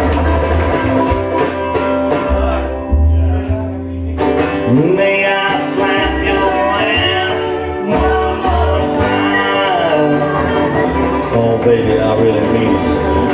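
Jug band playing a country song live: banjo and acoustic guitar strumming over washtub bass notes and dobro, with singing.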